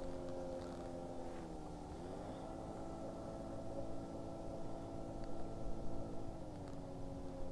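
A boat motor running steadily, its pitch dipping and then rising higher about two seconds in, and dropping back again near the end as the speed changes.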